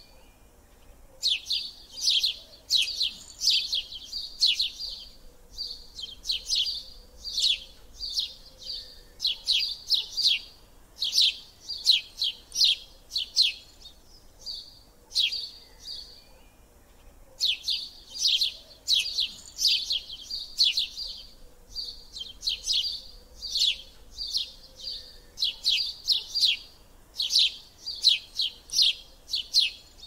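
A flock of house sparrows chirping in quick runs of short chirps, with a brief lull about halfway through.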